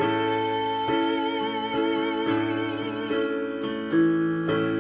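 A woman's voice holds a long sung note with vibrato for about three seconds over instrumental chords that change about once a second, in a worship song.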